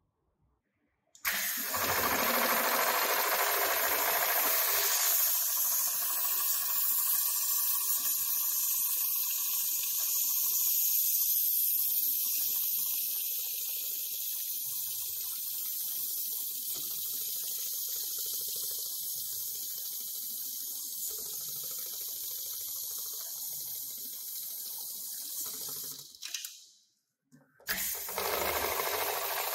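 HighTex ASM911 heavy-duty programmable pattern sewing machine running, stitching a pattern through thick polyester ratchet-strap webbing, with a steady hissy mechanical noise. It starts about a second in and cuts out briefly near the end.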